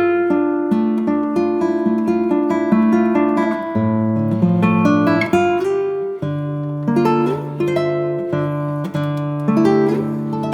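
Background music: acoustic guitar played fingerstyle, plucked notes and chords.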